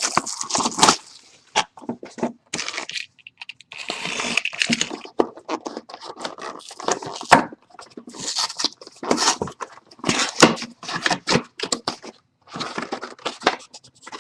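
The wrapping and cardboard of a sealed trading-card hobby box being torn open and handled: irregular tearing, crinkling and crackling with short scrapes and knocks.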